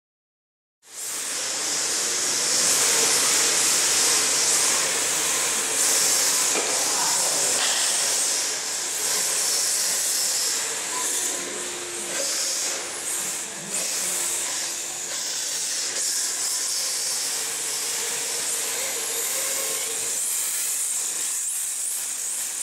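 Electric radio-controlled drift cars sliding on a smooth hall floor: a steady high hiss of hard drift tyres scrubbing, starting about a second in.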